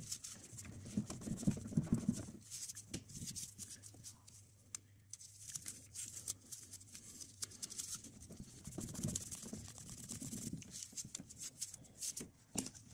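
Hands in nitrile gloves working among hoses and parts in an engine bay: scattered, irregular light clicks and rustling, with a faint steady hum under them.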